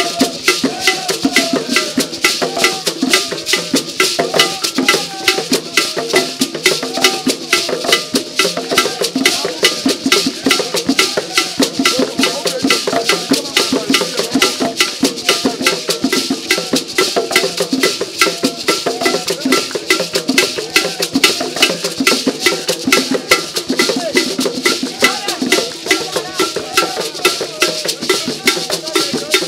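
Traditional Akan drum ensemble of barrel-shaped wooden drums, struck with hands and curved sticks, playing a fast, dense, unbroken rhythm for dancing.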